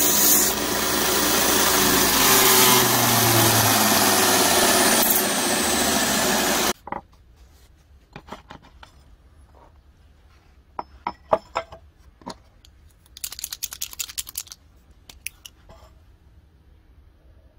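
Belt grinder running with a steel axe head pressed against the abrasive belt, grinding its profile; the grinding cuts off suddenly about seven seconds in. After that come scattered light clicks and taps.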